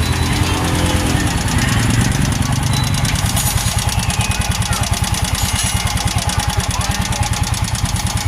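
Yamaha motorcycle engine idling with an even, rapid pulsing beat. This is the engine knock the bike is being repaired for.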